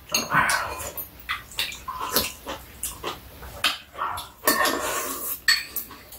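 Close-up eating sounds: wet chewing and slurping, with metal spoons and chopsticks clicking against bowls in quick irregular taps.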